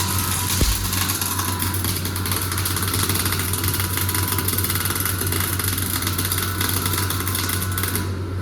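Argon-shielded arc welding on a rotary welding machine: a steady hiss and crackle of the arc over a constant low electrical hum. The arc cuts off suddenly near the end, leaving the hum.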